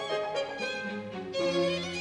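Background music: a violin playing a slow melody with vibrato over lower sustained notes.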